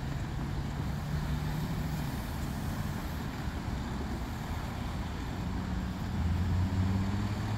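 Road traffic: cars driving across a railroad grade crossing, a steady low engine and tyre hum that swells near the end as a car passes close.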